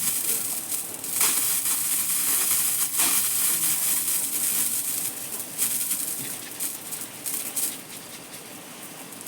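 Water from a pipe pouring and splashing, with irregular sharp splashes over a steady hiss of flow. It gets quieter over the last few seconds.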